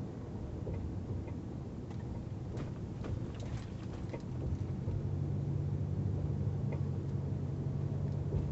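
Pickup truck cab at low road speed: the 2012 Dodge Ram's drivetrain and road noise hum low and steady, growing louder about four seconds in. Short, sharp intermittent ticks and clicks recur through it. This is the annoying noise from the front passenger side that persisted even after the whole front suspension was replaced.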